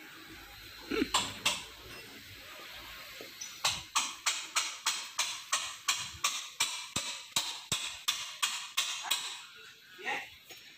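Two sharp taps about a second in. From a few seconds in comes a rapid, even run of sharp taps, about four or five a second, which stops after about five seconds.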